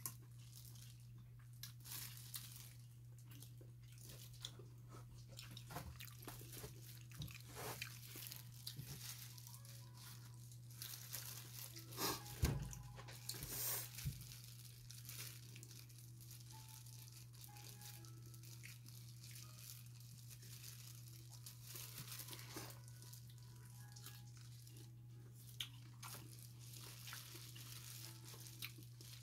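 Someone eating by hand in disposable plastic gloves: scattered chewing, crinkling and small crackling sounds, with a few louder knocks or rustles about twelve to fourteen seconds in, over a steady low hum.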